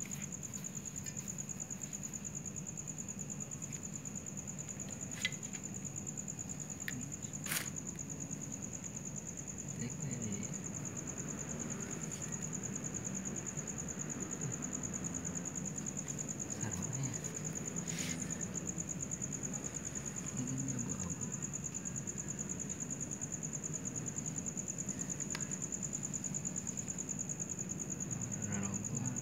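Steady high-pitched chirring of crickets at night, with a few short sharp clicks.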